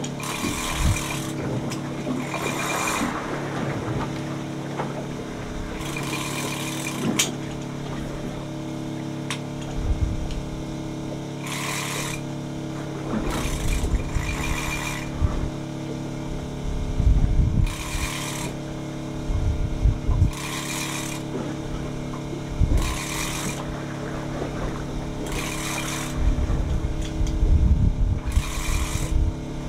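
A fishing reel whirring in repeated bursts of about a second, every two to three seconds, as line is worked in or given to a fish, over the steady hum of the boat's engine. There are some low thumps near the end.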